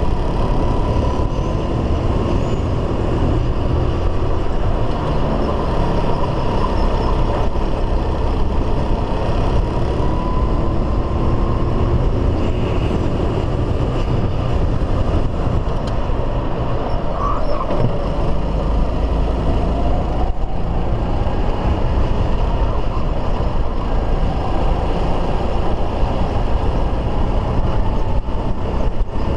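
Racing kart engine heard from onboard at full race pace, its pitch rising and falling as it accelerates and backs off around the circuit, under a heavy, steady low rumble.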